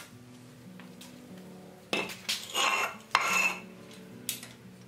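Metallic clatter of a hand tool and a plastic tray being handled and set down on a concrete floor under a wagon wheel: two bursts about a second apart, with a ring, over soft background music.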